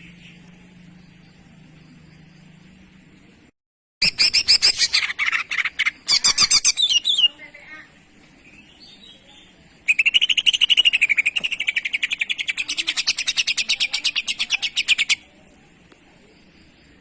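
Greater green leafbird (cucak ijo) singing loud, rapid chattering song in two bursts: a short burst of fast notes about four seconds in, then a longer run of quickly repeated notes from about ten to fifteen seconds in.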